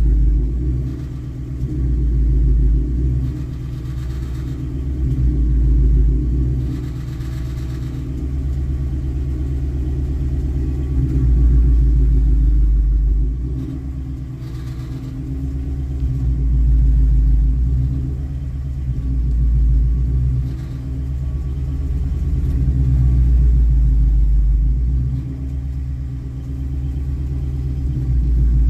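2019 Ford Mustang GT's 5.0 V8 pulling at low rpm under light throttle, a low rumble with a rattling vibration that swells and eases every few seconds. The rattle comes from loose exhaust clamps.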